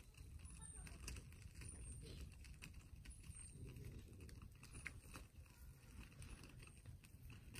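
Faint forest ambience: a low rumble like wind, with scattered light ticks and small high chirps now and then.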